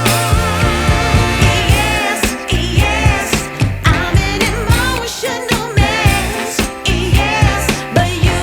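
Background music: a pop song with a vibrato-laden singing voice over a steady beat.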